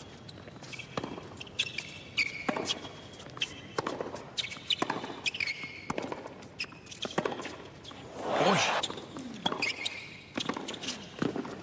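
Tennis rally on a hard court: repeated sharp racket-on-ball strikes and bounces with short high sneaker squeaks, and one louder burst about eight and a half seconds in.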